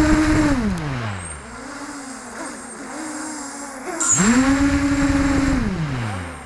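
ZMR250 racing quadcopter's brushless motors and propellers throttled up on the ground: a whine that climbs quickly to a steady pitch, holds about a second, then winds down to a lower wavering hum. About four seconds in it spins up again the same way and winds down near the end, without the craft lifting off.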